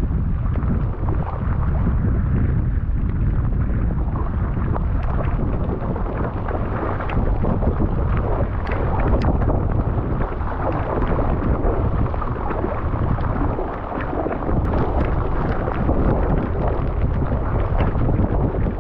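Wind buffeting the microphone, a steady loud rumbling noise, while out on the water in an inflatable kayak, with a few short faint ticks or splashes.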